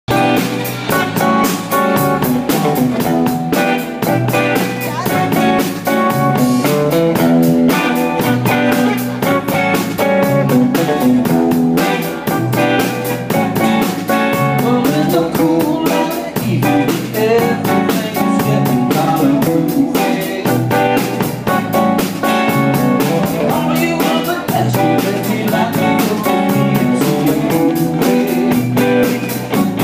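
Live band music led by a Stratocaster-style electric guitar, over a steady beat.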